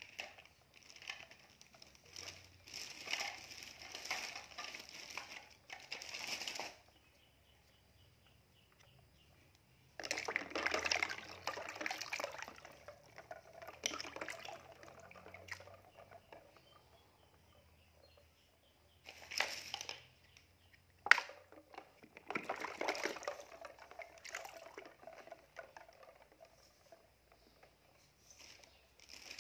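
Water sloshing and splashing in a plastic basin as a hand stirs floating plastic toy sea animals, in several separate bursts. One sharp knock stands out partway through, likely a toy bumping the tub.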